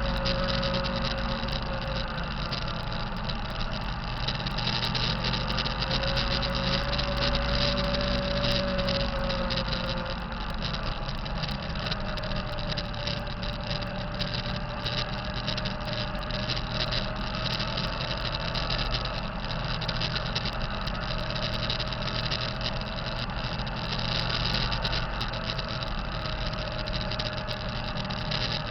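Kenworth T660 truck's diesel engine running steadily, with a thin whine that wavers in pitch over the engine noise. This is the turbocharger sound the owner considers bad.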